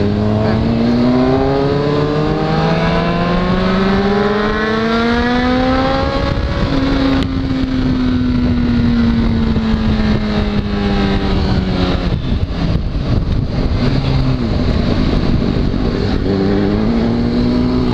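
Honda CBR sport motorcycle engine heard from the rider's seat, rising steadily in revs for about six seconds as it accelerates, then easing off and winding down slowly, and picking up again near the end. Wind rushes over the microphone throughout, gusting in the middle.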